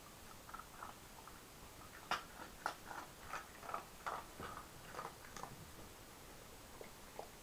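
Light plastic clicks and taps from a dog treat-puzzle toy as a dog noses and paws at its pieces and sliding covers: an irregular run of small knocks in the middle, a couple more faint ones near the end.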